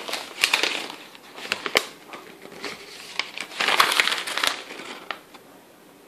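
Paper crinkling and rustling in several irregular bursts with small clicks, as a sheet of paper, an invoice, is picked up and handled.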